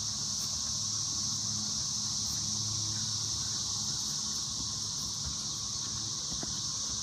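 Steady high-pitched drone of an insect chorus, unbroken throughout.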